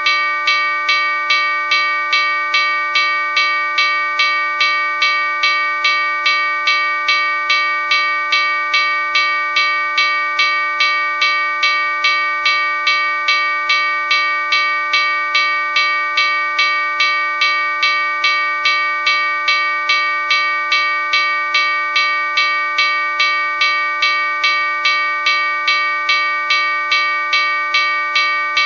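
Railroad crossing bell ringing steadily at about two strikes a second, its tone ringing on unbroken between strikes.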